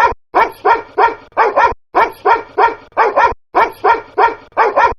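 Dog barks edited into a looped DJ sample, a quick double bark on each beat at about two and a half beats a second, with a short break after every four beats.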